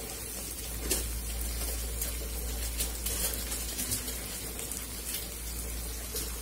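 Onions and spice paste frying in oil in a wok-like pan: a steady sizzle with a few faint crackles.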